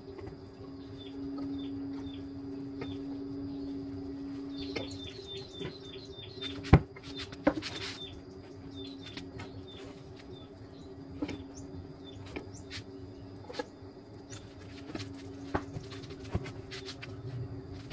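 Handling of PVC pipe and fittings during solvent-cement gluing: scattered small clicks and rubs, one sharp knock about seven seconds in, and a brief scraping rustle just after. Underneath are a steady two-tone hum and small birds chirping, including a quick run of chirps about five seconds in.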